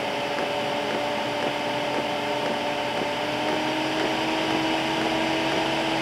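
Chinese diesel heater's combustion air blower fan running with a steady motor whine that rises slightly in pitch about halfway through as the fan speeds up during the heater's start-up phase.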